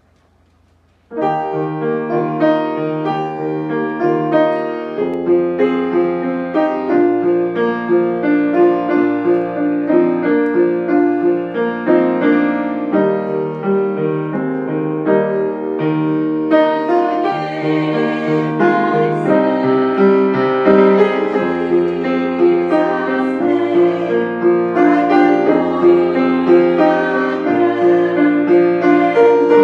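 Yamaha grand piano played with full two-handed chords and a melody, starting about a second in and going on steadily.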